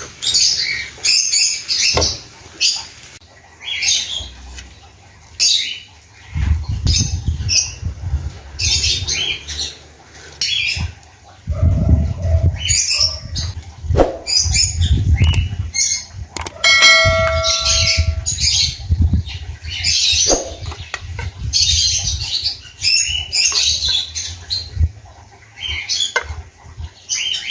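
Metal spatula scraping and clanking against a steel wok and a serving dish as fried rice is tossed and scooped out: a run of short, sharp scrapes and clinks. A brief ringing tone sounds about two-thirds of the way through.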